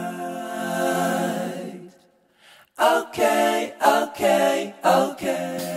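Unaccompanied a cappella singing: one long held note, a brief break, then a quick run of short sung notes.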